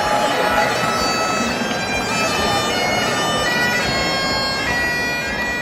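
Bagpipes playing a tune of held notes that step from one pitch to the next, over a steady background of crowd noise.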